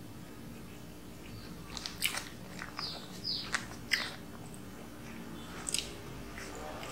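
A person chewing a mouthful of soft cream-filled choux-style cake, with scattered wet mouth clicks and smacks, mostly between about two and four seconds in and again near six seconds.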